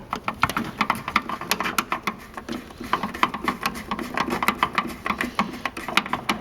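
Rapid, irregular clicking and rattling of a hand tool working hex screws and the metal and plastic parts of an electronic voting machine's casing during disassembly.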